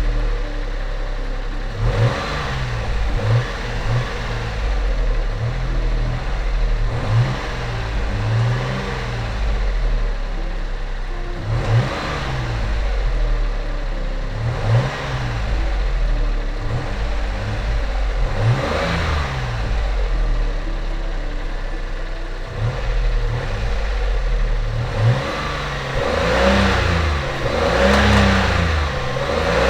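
Daihatsu Xenia 1000's three-cylinder petrol engine running and being revved in repeated short throttle blips, the pitch rising and falling every couple of seconds. It is a test run after the throttle body and idle speed control valve have been cleaned and refitted.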